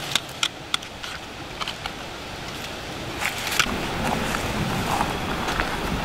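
Light clicks and crinkles from a thin, corroded sheet of aircraft aluminum being handled on rock, over a steady rushing noise that grows louder about three seconds in.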